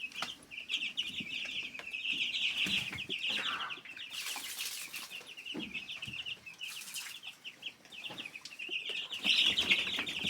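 A flock of young chicks and turkey poults peeping constantly in rapid, high chirps. Two short rustling noises come about four and seven seconds in.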